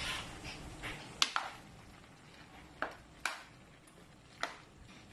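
Metal spoon stirring food in an aluminium pan: a soft scraping for about the first second, then several sharp, irregular clinks of the spoon against the pan.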